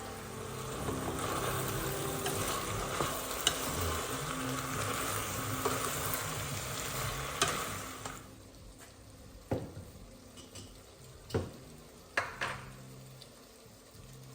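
Food sizzling in a hot pan while it is stirred, with a few utensil clicks against the pan. About eight seconds in the sizzle falls away, and a handful of separate sharp knocks follow.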